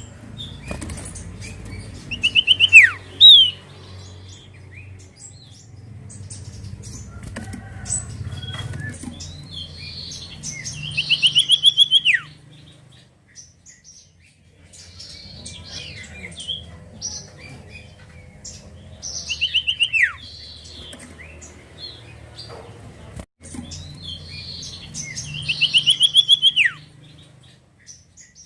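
Common iora (cipoh) singing: four times, a fast trill of quick notes ends in a steep falling slur, roughly every eight seconds. Fainter chips come between the phrases, over a low steady hum.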